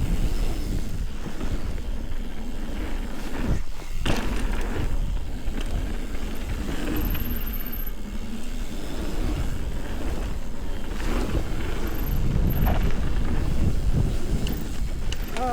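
Wind rushing over an action camera's microphone and knobby mountain bike tyres rolling on a dirt trail during a fast descent, a steady rumble with a few knocks and clatters as the bike hits bumps.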